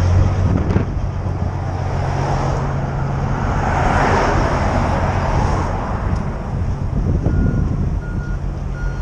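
Heavy diesel trucks idling with a steady low drone, and a car going by in the middle. Near the end a truck's reversing beeper starts, beeping at one pitch about twice a second.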